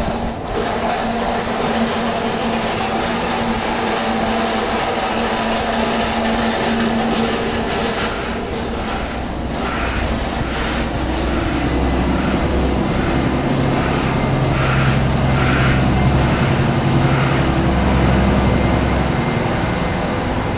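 Wind blowing on the microphone over the steady hum of engines, the hum shifting in pitch about halfway through. In the middle, a run of soft regular ticks comes about every two thirds of a second.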